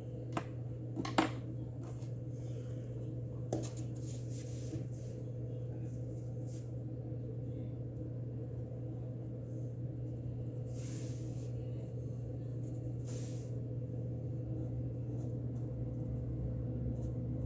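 Colouring utensil scratching in brief strokes on a colouring book page, with a few light clicks, over a steady low hum.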